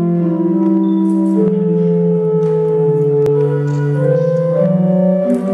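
Organ music: slow sustained chords, each held steady for a second or so before moving to the next.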